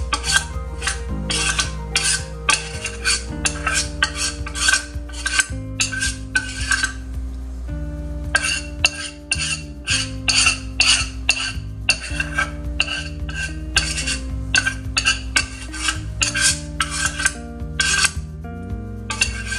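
A metal spoon scraping and clinking against a stainless-steel pot as cake batter is scraped out into a frying pan, under background music with a steady beat and a bass line.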